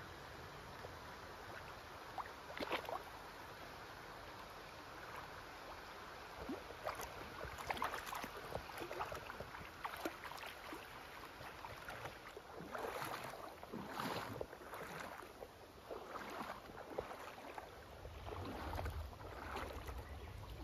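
Splashing of wading steps through a shallow river over the steady sound of the flowing water. The splashes come irregularly at first and more often in the second half.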